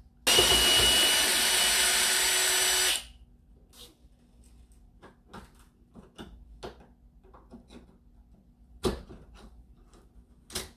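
Power drill running steadily for about three seconds while the old deadbolt is taken out of the door, then stopping; light clicks and knocks follow as the hardware is handled, with two sharper knocks near the end.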